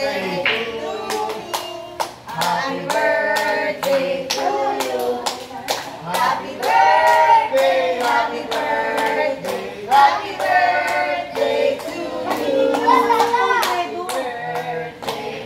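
Voices singing together, with hand clapping in steady time.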